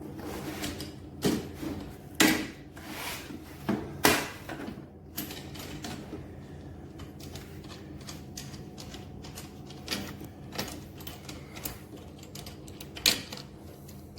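Irregular clicks, knocks and rattles of plastic parts being handled and fitted together, with a handful of sharper clacks, over a faint steady hum.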